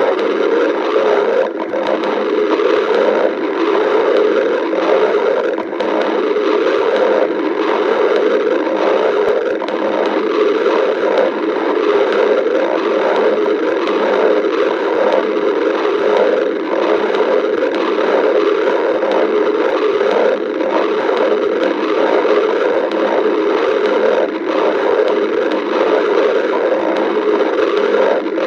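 A hungry person's stomach growling and gurgling without a break, a dense, uneven rumble.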